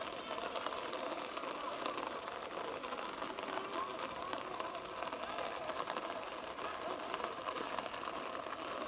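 Distant voices of rugby players shouting and calling across the field, a steady mix of overlapping calls with no single loud event.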